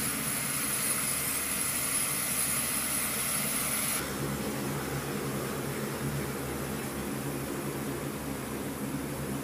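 US Air Force C-130J Super Hercules taxiing, its four turboprop engines and propellers running with a steady drone and a high-pitched whine. About four seconds in the whine cuts off and the engine sound turns lower and duller, further off.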